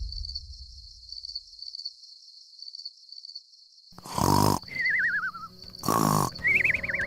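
The tail of a deep boom dying away, then two short, loud roar-like growls about two seconds apart, with warbling, wavering whistle tones between and after them.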